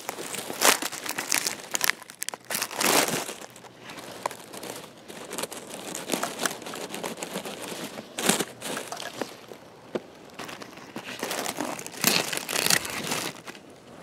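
Dry pine needles, twigs and leaf litter crackling and rustling as a hand rummages through them, in irregular bursts, loudest about three, eight and twelve seconds in.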